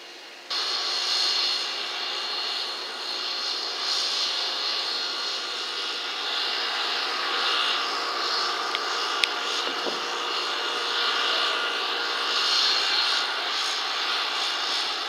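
Steady mechanical hiss and whine of running machinery, with a sharp click about nine seconds in.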